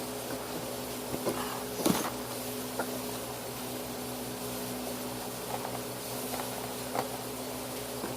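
Steady appliance hum with a few short sharp clicks over it, the loudest about two seconds in.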